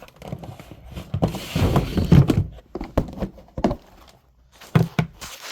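A storage container being pulled out and opened by hand: a run of sharp knocks and clicks over a rustling of the papers inside.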